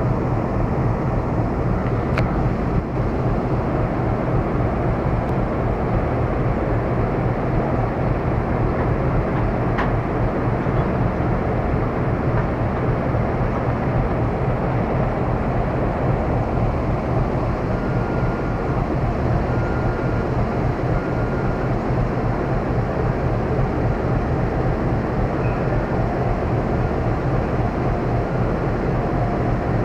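Steady low hum and rumble of a train standing at a station platform, heard from beside the carriage. Faint short high beeps repeat through the second half.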